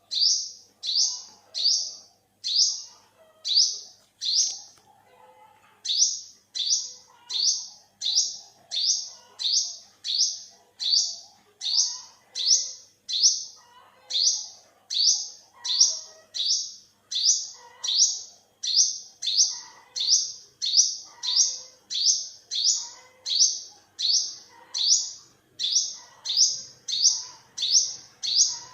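Olive-backed sunbird (yellow-bellied sunbird) calling: short, high-pitched notes repeated about twice a second in a long steady series, with a brief pause about five seconds in.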